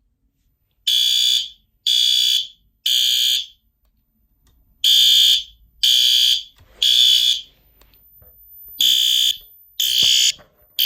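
System Sensor SpectrAlert Advance horn strobe sounding a loud, high horn tone in the temporal-three evacuation pattern: three half-second blasts a second apart, then a pause, repeating.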